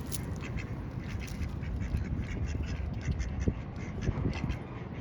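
A group of ducks quacking close by, many short calls overlapping, as they crowd in to be fed seeds.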